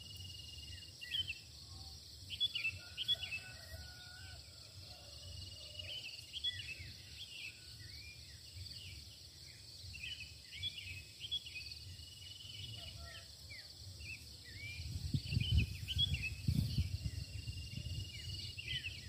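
Dawn chorus of small birds giving many short chirps, over a steady high drone of insects. A low rumble comes in a few seconds before the end.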